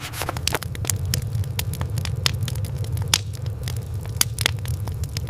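Wood fire crackling, with sharp irregular pops over a steady low rumble.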